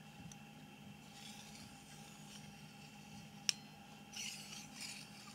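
Faint rubbing hiss of a Mitutoyo 530-101 vernier caliper's sliding jaw gliding along its steel beam in a few smooth strokes, the clearest about four seconds in, with one sharp click about three and a half seconds in. The slide runs smoothly under a slight, even resistance.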